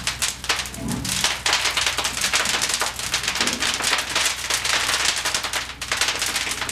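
Fully involved fire in a training burn room, crackling and popping densely and irregularly, with a steady low hum underneath.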